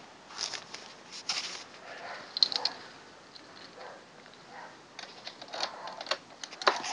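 Irregular light clicks, scuffs and rustling from shoes shifting on a concrete floor and the camera being handled; no engine is running.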